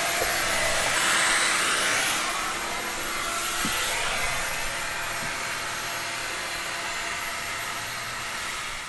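Electric polisher running steadily as it buffs stainless steel boat rails, a constant machine noise that grows gradually fainter through the second half.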